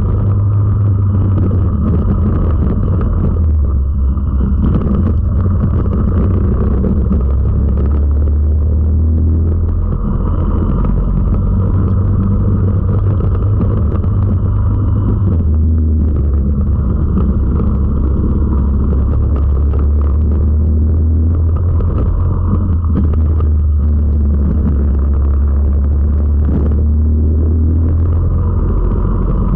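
Four-stroke racing kart engine running hard at race pace, heard from onboard. Its note drops and climbs again several times as the throttle comes off and goes back on through the corners.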